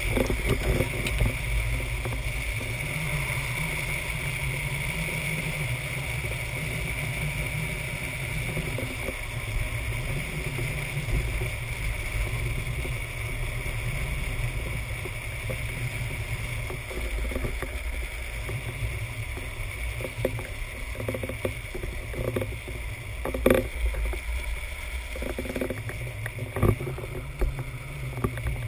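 Drift trike rolling fast down an asphalt road: a steady rumble of its wheels on the road surface mixed with wind noise, with a few sharp knocks in the last few seconds.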